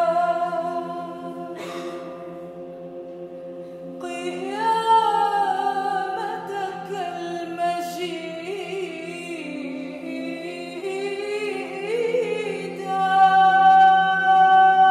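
Solo female voice singing an Arabic hymn over a steady low drone: a held note fades at the start, the voice rests for a few seconds, then a wavering melodic phrase comes in about four seconds in and rises into a long held high note near the end.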